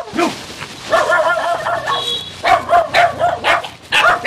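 A dog barking and whining: a drawn-out wavering whine about a second in, then a run of short, sharp barks.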